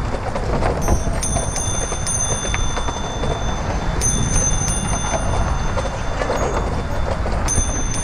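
A bicycle bell rung three times, each ring starting sharply and ringing on for a couple of seconds, over a steady rumble of tyres on wooden deck planks and wind on the microphone.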